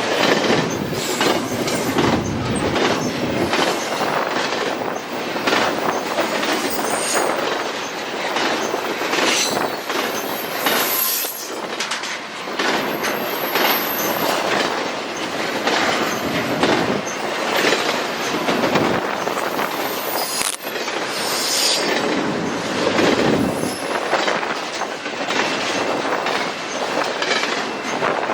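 CPKC freight train cars rolling past on the track, wheels clacking over rail joints, with a few brief high-pitched wheel squeals.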